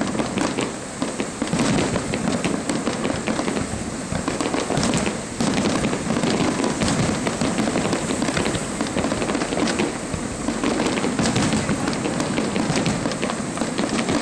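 Aerial fireworks display: a dense, continuous barrage of shell bursts and crackling, with many sharp pops following one another.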